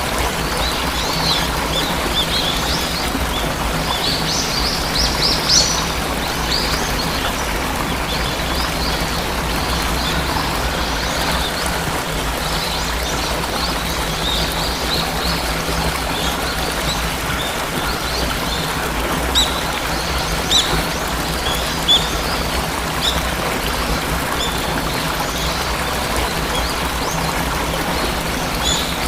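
Steady rush of falling water from a waterfall, with small birds chirping over it in short high calls, thickest a few seconds in and again about two-thirds of the way through.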